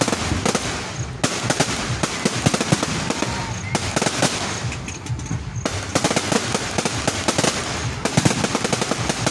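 Aerial fireworks bursting overhead: a dense, rapid string of cracks, pops and bangs from exploding shells and crackling stars.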